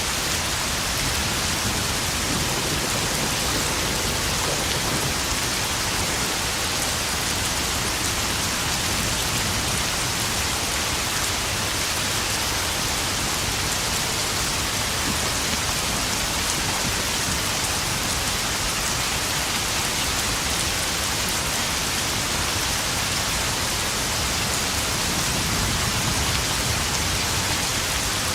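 Steady heavy rain pattering onto puddles, an even, unbroken hiss that holds at the same level throughout.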